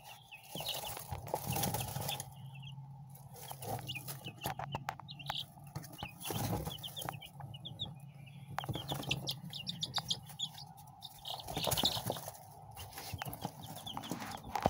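Young chicks peeping, short high cheeps in quick runs, over a steady low hum and scattered clicks.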